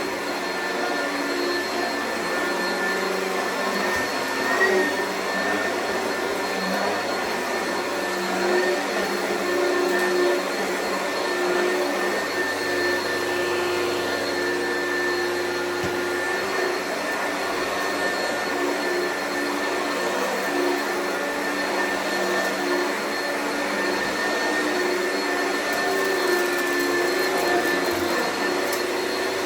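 Oreck vacuum cleaner running steadily, a constant motor whine over airflow noise with a few small surges in loudness.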